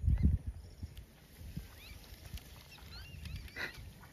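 A short low rumble right at the start, then faint scattered bird chirps over the open-air background of a pond.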